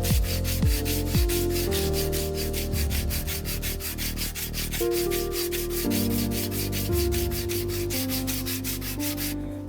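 Background music with a steady beat and held chords, over the rasping strokes of sandpaper being worked by hand along a 5160 steel blade. The fast high ticking stops suddenly near the end.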